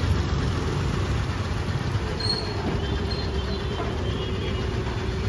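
Motorbike and scooter engines running in a queue at a petrol pump, a steady low rumble. About two seconds in a steady mid-pitched hum joins it.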